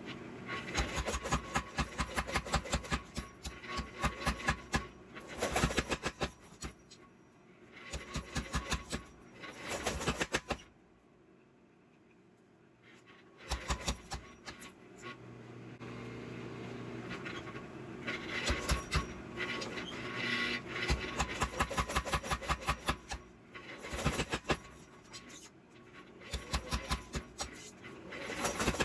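A hammer striking hot steel on an anvil in quick runs of blows, broken into bursts with short pauses and a longer pause of a few seconds near the middle: hand forging.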